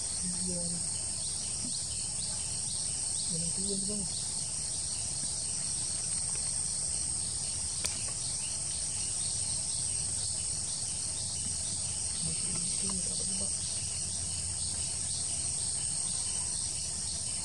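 Steady high-pitched chorus of insects, crickets or cicadas, in tropical tree canopy, with a few faint low calls underneath and a single faint click about eight seconds in.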